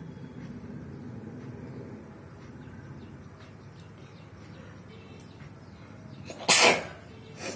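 A person sneezes once, loudly and suddenly, about six and a half seconds in: a deliberately provoked sneeze. A shorter, softer burst of breath follows near the end.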